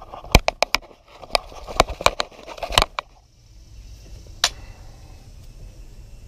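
Irregular sharp clicks and knocks of handling, about nine of them over the first three seconds and a single one about four and a half seconds in, over a low steady hum.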